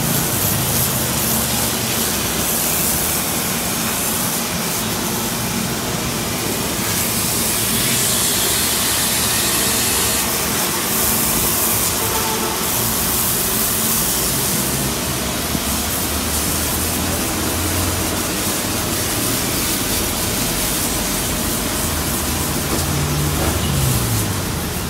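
A motor running steadily, with the hiss of water spraying from a hose at times, loudest about a third of the way in.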